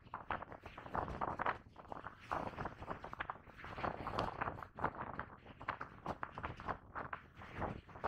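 Footsteps of a person walking, a run of short irregular steps.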